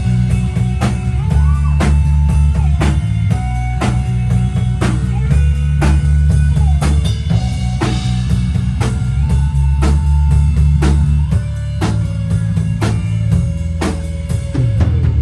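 Live deathrock band playing without vocals: a drum kit keeps a steady beat of sharp hits about twice a second over a heavy bass, with sustained and sliding guitar lines above.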